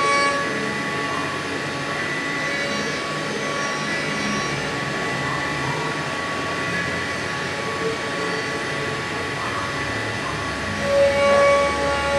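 CNC router spindle running with an end mill cutting a pocket in a plastic plate: a steady high whine over the noise of the cut, swelling briefly near the end.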